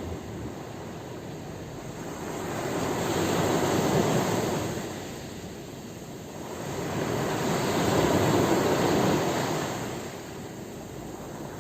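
Sea waves breaking and washing in, two slow swells of surf noise that rise and fall about four seconds apart.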